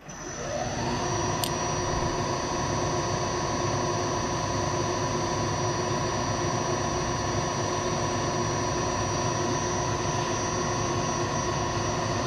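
Vertical milling machine spindle motor starting up, its pitch rising over about the first second, then running steadily with a constant whine and hiss. A brief tick comes about a second and a half in.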